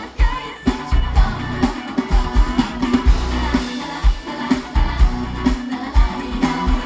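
Thai pop song playing loud over a concert sound system, with a heavy bass beat about twice a second and a sung melody.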